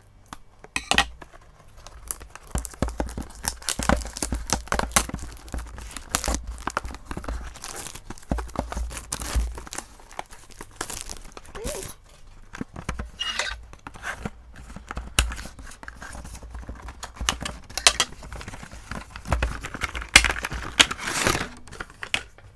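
A small cardboard blind box being opened: scissors cutting it, cardboard tearing, and a clear plastic bag crinkling as the figure inside is handled. The sound is a long run of irregular crackles and rips.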